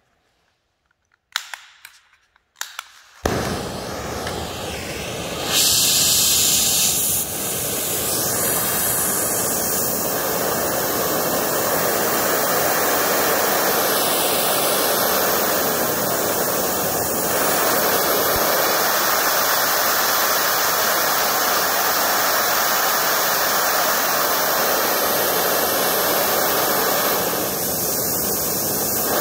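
Oxy-acetylene welding torch: a few sharp clicks and pops as it is lit, then the flame burning with a loud, steady hiss. The hiss jumps up a few seconds in and changes in tone twice more as the oxygen and acetylene are adjusted between a carburizing and a neutral flame.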